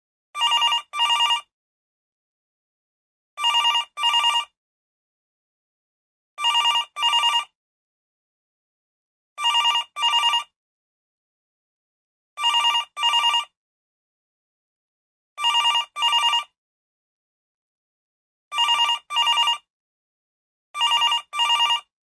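Old telephone bell ringing in a double-ring pattern: eight pairs of short rings, one pair about every three seconds, with silence between.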